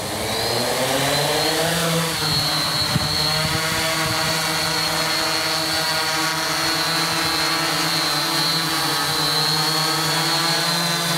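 A Tarot 680 Pro hexacopter's six electric motors and propellers spooling up for takeoff, the pitch rising over about two seconds as it lifts off. It then settles into a steady hovering drone with a thin high whine above it.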